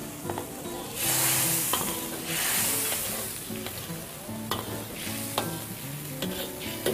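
Tofu and sauce sizzling in a wok as a metal ladle stirs them. The sizzle surges loudly twice, about one and two and a half seconds in, and a few sharp knocks of the ladle against the wok come later.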